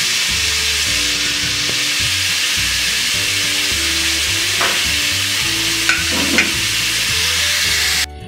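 Steady sizzling hiss from a karahi of cubed green papaya and green chillies cooking over a gas burner, with a few light clicks in the middle and soft background music underneath. The hiss cuts off suddenly near the end.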